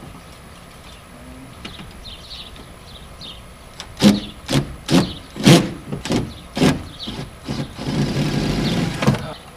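Cordless drill backing screws out of an old floodlight fixture's mount: a string of short trigger bursts about half a second apart, then a steady run of about a second near the end.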